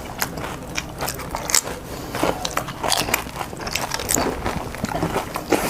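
Crisp puchka (panipuri) shells being bitten and chewed in quick mouthfuls, many irregular close-up crunches and crackles running together.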